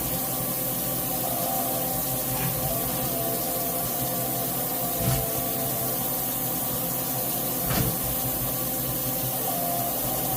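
1997 Fadal 4020 CNC vertical mill running: a steady hiss with a faint whine, and two brief knocks about five and eight seconds in.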